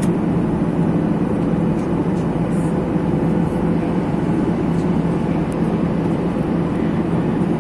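Steady cabin noise of a Boeing 737 airliner in cruise: a constant drone of engines and rushing air with a low hum running through it.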